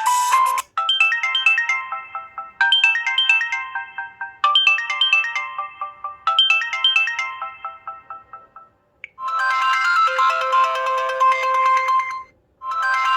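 Samsung Galaxy S2 Skyrocket ringtones played in turn. A short bell-like melody repeats four times. Then a fuller, brighter ringtone starts about nine seconds in, stops briefly near the end and loops again.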